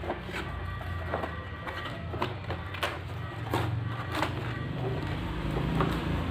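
Cardboard motherboard box being handled and its lid opened: scattered taps, scrapes and clicks of cardboard, over a low steady rumble.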